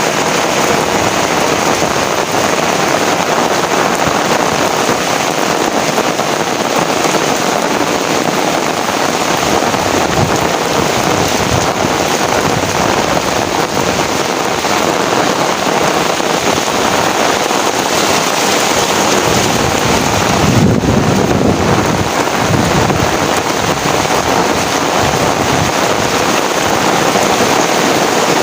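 Heavy rain falling steadily, a dense hiss of downpour on surfaces. About two-thirds of the way through, a low rumble rises briefly under the rain.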